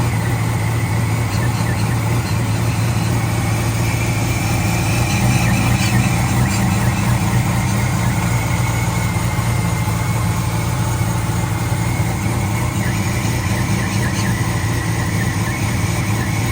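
LS-swapped 1978 Chevrolet Caprice V8 running steadily after a no-start fault, with the crankshaft position sensor replaced.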